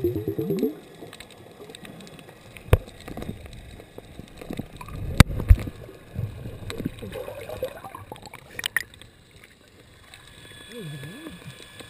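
Underwater sound picked up through a GoPro's sealed dive housing: low, muffled water noise with a few sharp clicks and knocks.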